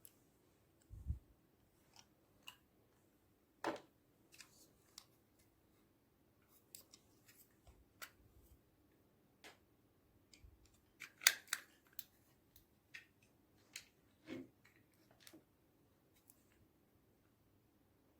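Slime being mixed: irregular small clicks and sticky snaps, with a cluster of louder ones about eleven seconds in.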